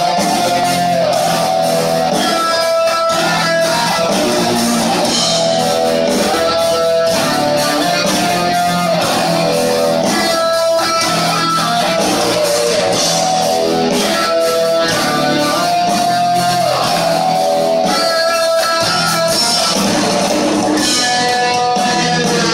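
Heavy metal band playing live: loud distorted electric guitars holding sustained notes over a steady drum beat and bass, heard from within the crowd.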